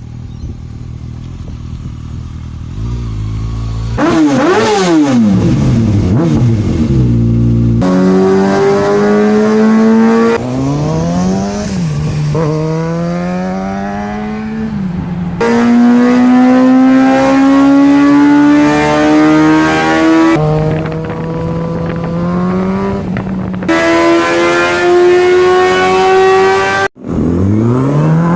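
2014 Kawasaki Ninja ZX-6R 636's inline-four engine and exhaust in a run of cut-together clips. It runs steadily at first, then revs up and back down about four seconds in, then pulls with its pitch climbing steadily under acceleration, dropping at shifts and climbing again.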